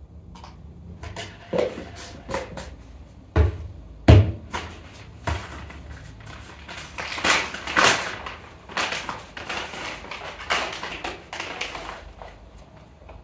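Irregular clatter and knocks of objects being handled, with two heavier thuds about three and a half and four seconds in.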